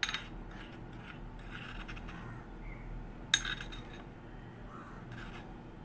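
Plastic spoon scraping coffee powder out of a small glass bowl, with light clinks of glass and one sharp clink a little past halfway.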